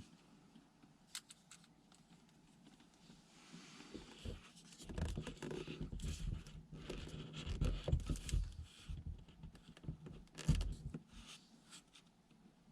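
Irregular rustling and clicking with soft low thumps, as of objects being handled and moved about; the thumps cluster through the middle and the loudest comes near the end.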